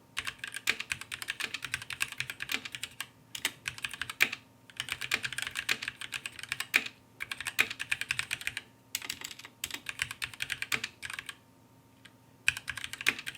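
Fast typing on a mechanical keyboard with linear red switches, in runs of rapid keystrokes broken by short pauses, with one pause of about a second shortly before the end.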